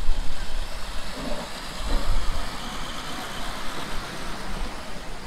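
Miniature passenger railway train running past close by, a low rumble of wheels rolling on the rails.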